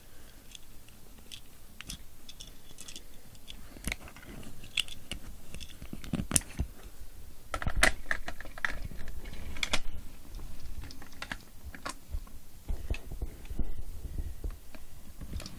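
Hard plastic Power Rangers zord toy parts being handled and fitted together: irregular clicks and knocks of plastic on plastic, the loudest about six, eight and ten seconds in.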